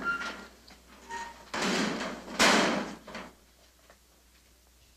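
Metal school locker door being worked open: a short squeak near the start and again about a second in, then two rattling, clattering noises about a second and a half and two and a half seconds in.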